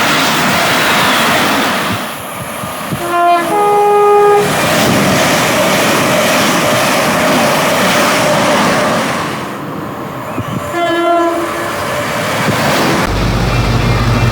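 A train passing at speed with loud rushing rail noise. Its two-tone horn sounds about three seconds in, a short low note followed by a slightly longer higher note, and gives a short low note again around eleven seconds. Near the end the rushing gives way to a steady low hum.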